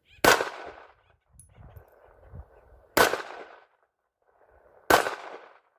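Three single pistol shots, the first just after the start, the second about three seconds in and the third near the end, each followed by a short echo dying away.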